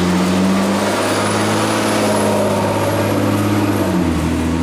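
Delivery truck engine idling, a loud, steady running that shifts slightly about four seconds in.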